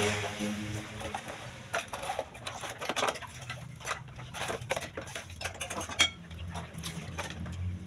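Irregular light clicks and clatters of small hard objects being handled, with one sharper click about six seconds in.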